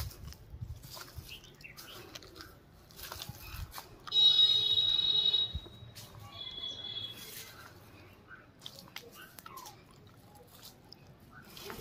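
Footsteps and small crunches on dry leaf litter, broken about four seconds in by a loud, high, buzzy call lasting about a second and a half, then a shorter, fainter one about two seconds later.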